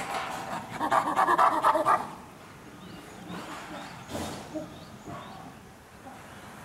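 Chimpanzee calling: a loud, rapid run of pulsed calls lasting about two seconds, then stopping.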